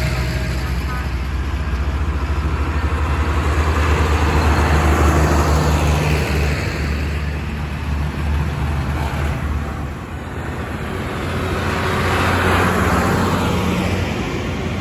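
A convoy of tractors driving past on a road, their diesel engines running with a deep, steady drone. The sound swells as each tractor passes close, eases off about ten seconds in, then rises again as the next one nears.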